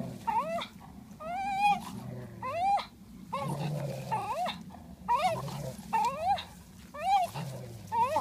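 Dogs play-fighting over a ball: a low growl runs underneath while short, high-pitched whines rise and fall about once a second, one longer drawn-out whine near the start.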